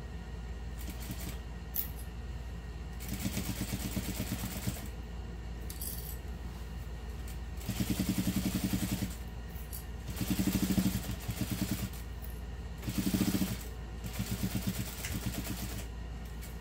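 Juki sewing machine stitching in about six short bursts of a second or so each, stopping and starting as a curved seam is eased through.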